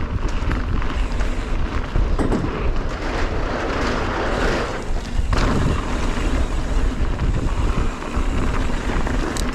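Wind rushing over a helmet-mounted action camera's microphone with the rumble of a mountain bike's tyres rolling on a dirt trail, a steady low roar with a few sharp clicks and rattles.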